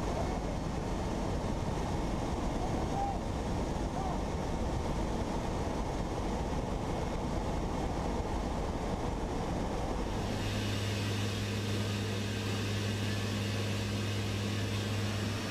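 Aircraft cabin noise in flight: a loud rush of wind and engine noise through an open rear ramp. About ten seconds in it changes to a steadier engine drone with a low hum.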